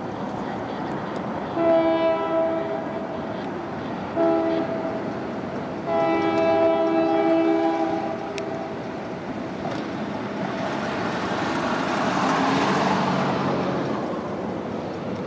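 EMD diesel locomotive air horn sounding the end of the grade-crossing signal: a long blast, a short one, then a longer final blast. The lead SD40M-2 and SD40-2 then grow louder as they approach, their engines and rolling noise swelling to a peak near the end.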